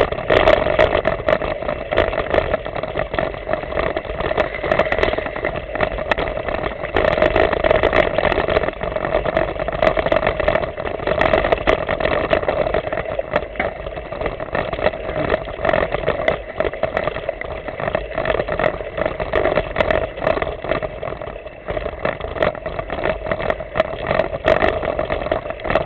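Continuous ride noise from a mountain bike climbing a forest trail, picked up by a camera riding along: a steady hum with frequent small knocks and rattles as the bike and camera jolt over the ground.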